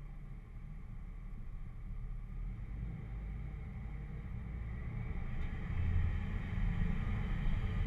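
Engine of a red off-road 4x4 running steadily, heard mostly as a deep sound; about five seconds in it grows louder as the vehicle pulls forward toward a dirt mound.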